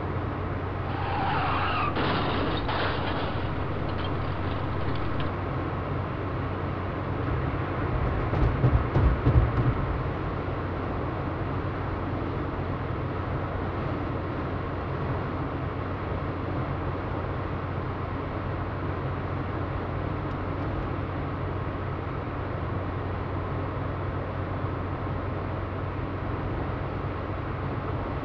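Steady road-traffic noise over constant hiss and electrical hum, as picked up by a surveillance camera's microphone. About eight to ten seconds in there is a short burst of louder, irregular low rumbling with a few sharp knocks.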